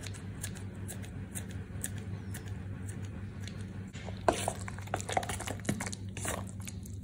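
Kitchen scissors faintly snipping fresh parsley, then from about four seconds in a spoon stirring and scraping a thick aubergine and walnut dip in a stainless steel bowl, over a steady low hum.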